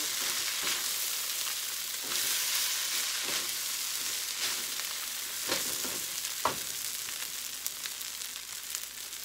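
Shrimp fried rice sizzling in a metal wok while a spatula stirs and turns it, with a few sharper scrapes of the spatula against the pan. The sizzle eases a little toward the end.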